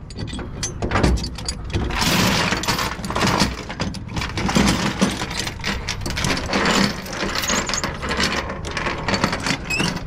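A steel securement chain and a ratchet chain binder clinking and rattling as they are handled and hooked up on a metal flatbed deck: a busy run of metallic clinks and knocks.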